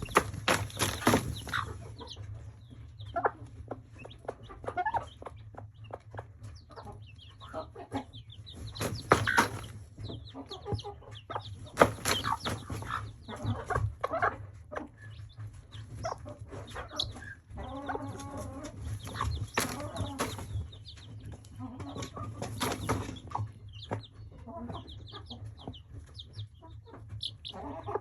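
Mother hen clucking to her chicks while her scratching makes repeated banging and scraping noises, with the chicks' short high-pitched peeps in between; she is teaching them to scratch.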